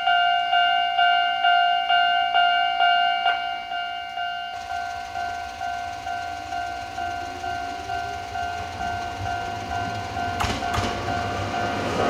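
Japanese level-crossing alarm bell ringing a repeating electronic tone, about two strikes a second, warning of an approaching train. A little over a third of the way in the bell grows quieter and a low rumble sets in under it. Near the end an electric train arrives, its wheels clicking over the rail joints.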